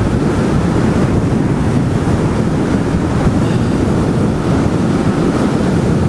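Steady, loud rush of wind buffeting the microphone on a moving electric bike travelling at about 16 miles an hour.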